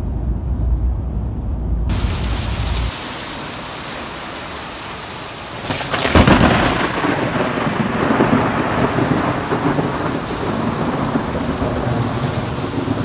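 Hard rain and wind of a thunderstorm, pouring steadily, with a sharp thunderclap about six seconds in that rolls on under the rain.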